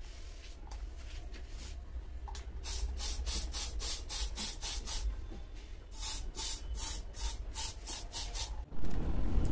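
Hand-pump spray bottle squeezed over the hair in two quick runs of short hissing puffs, about three a second, with a pause of about a second between the runs. Near the end a louder low rushing noise sets in.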